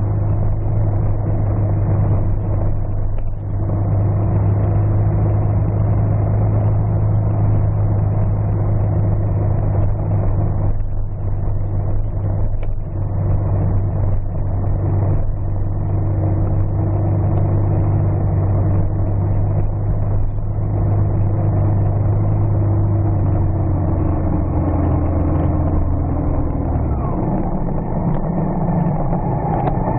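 Vehicle engine running steadily as it drives along a gravel road, with road noise from the gravel under it. The engine note sinks slightly over the last several seconds and changes abruptly about three seconds before the end.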